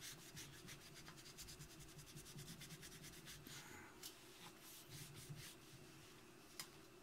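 Cloth rubbing over a chrome-plated Jeep hubcap, wiping off rust remover: a faint, quick run of scratchy wiping strokes, about five a second, thinning out after about four seconds, with one sharp click near the end.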